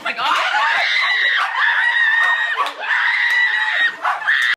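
High-pitched screaming: about four long, held screams in a row, each roughly a second, with short breaks between.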